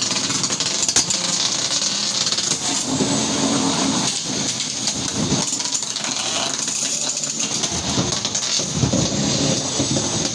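Antweight combat robots fighting: a drum spinner and a vertical spinner with their weapon motors whining at a steady high pitch, with repeated clattering hits between the robots and against the arena walls, one sharp hit about a second in.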